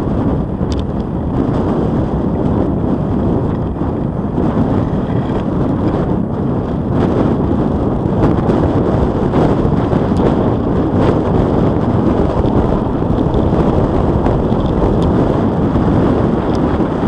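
Steady wind buffeting on the microphone of a camera riding on a moving bicycle, mixed with tyre and road rumble as the bike rolls along.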